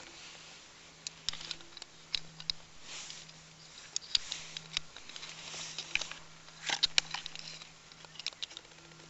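Small metallic clicks, taps and scrapes as multitool pliers work at the battery contact inside a metal battery tube, in irregular clusters, the loudest about seven seconds in. A faint steady low hum sits underneath.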